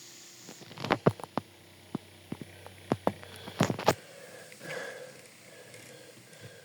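A portable electric fan being handled: a dozen or so sharp plastic clicks and knocks over about three seconds, the loudest near the end of that run, followed by a brief softer rustle. A steady hiss stops just before the clicks begin.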